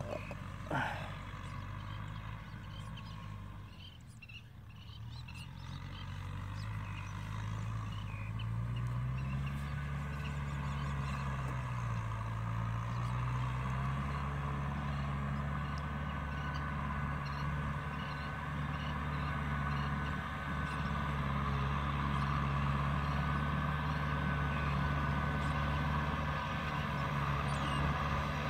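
Tractor engine running as the tractor drives across a wet paddy field, growing steadily louder as it approaches. Its pitch rises and dips briefly partway through. Two short sharp sounds come right at the start.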